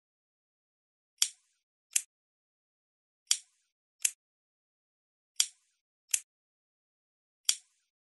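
A lighter clicking in pairs, each pair a click with a short trailing tail followed about three-quarters of a second later by a sharper, shorter click. The pair repeats about every two seconds, with silence between.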